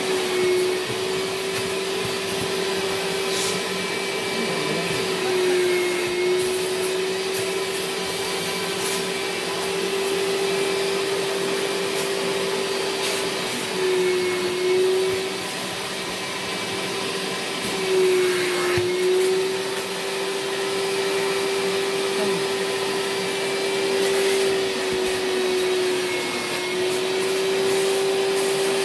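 Vacuum motor of an upholstery-cleaning extraction machine running steadily as its hand nozzle is drawn over a mattress. The motor's whine drops briefly in pitch a few times, then recovers.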